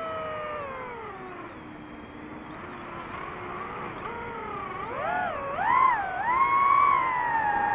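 DJI FPV drone's motors and propellers whining, the pitch falling as the throttle eases off, then swooping up and down in two quick throttle blips about five and six seconds in before holding a higher steady whine.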